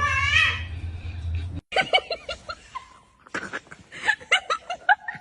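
A cat's drawn-out meow at the start. After a sudden cut, a person laughs in short, quick bursts.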